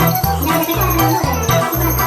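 Background music with a steady beat: a repeating bass line under a bright, jingly tune.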